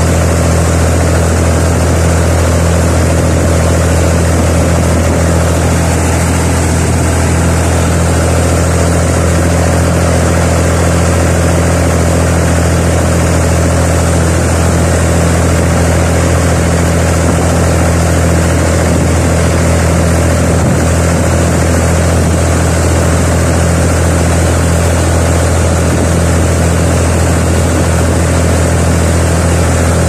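Massey Ferguson 135 tractor engine running steadily as the tractor drives along at an even speed, its low drone holding one pitch throughout.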